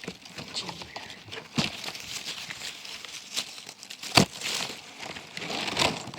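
Leaves and vines of a muscadine vine rustling and crinkling as they are handled and pushed aside, with scattered sharp clicks, the loudest about four seconds in.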